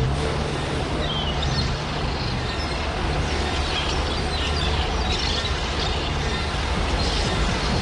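Beatless break in a hardcore techno set: a sustained low synth bass drone that steps between notes under a noisy wash, with scattered high chirps and no kick drum.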